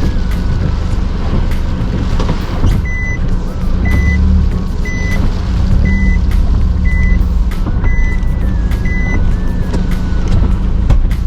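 Strong typhoon wind buffeting the microphone with a heavy low rumble. From about three seconds in, a short high electronic beep repeats about once a second, seven times.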